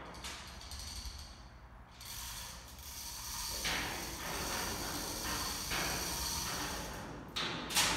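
Overhead chain hoist being worked by hand, its chain rattling through and the mechanism clicking steadily from about halfway in, with one sharp clank near the end.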